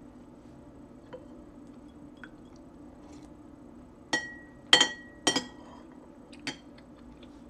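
A spoon clinking against a soup dish while eating. There are three sharp clinks about half a second apart, each with a short ring, then a fainter clink a second later.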